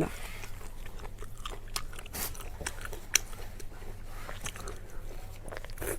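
A person chewing and biting food close to the microphone: scattered wet mouth clicks and small crunches, with one sharper snap about three seconds in.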